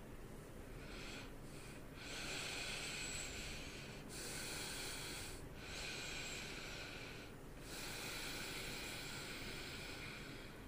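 A man breathing heavily through his nose close to the microphone: a few short breaths, then a series of long, noisy breaths of about two seconds each with brief pauses between.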